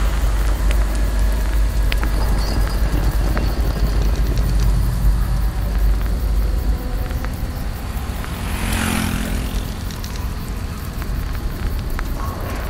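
Steady low rumble of city vehicle noise, with a few faint clicks and a brief hiss that swells and fades about nine seconds in.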